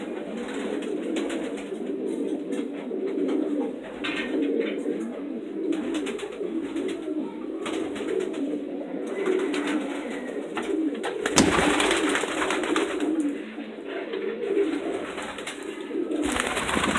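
Many racing pigeons cooing at once, a continuous overlapping chorus of low coos, with a brief louder burst of noise about two-thirds of the way through.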